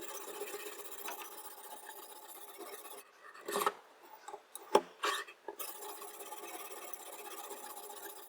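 A few short scraping strokes of a diamond sharpening stone along a chef knife's edge, about halfway through, over a steady hum.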